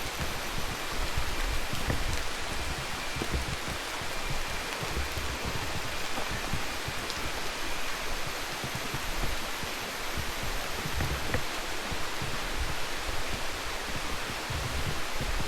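Steady, even hiss of water, with uneven low rumbles underneath.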